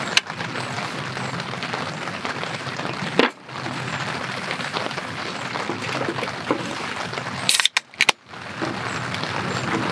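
Steady patter of rain under two beer cans being handled on a wooden table: a knock about three seconds in as a can is set down, then near the end both aluminium cans are cracked open one right after the other, each ring-pull giving a sharp click and hiss.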